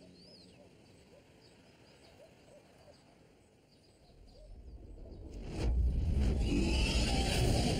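Faint bird chirps. Then, from about four seconds in, a rising rush of noise that turns loud about five and a half seconds in.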